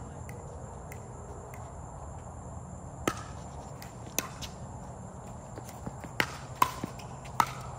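A pickleball rally: hard paddles popping against a plastic pickleball, with the ball's bounces, about six sharp pops with a short ring, the first about three seconds in and coming faster near the end.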